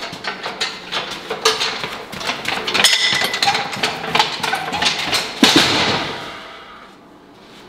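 Loaded strongman yoke carried at a quick walk: the steel frame and its weight plates rattle and knock irregularly with each step, with one louder clank about five and a half seconds in before the clatter dies away.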